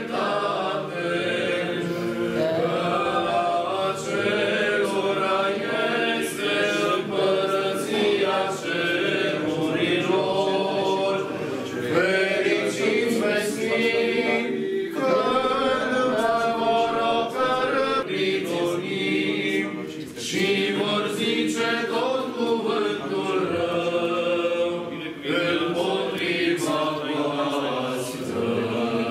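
Eastern Orthodox liturgical chant sung a cappella by a group of voices, one continuous melodic line that bends and glides in pitch.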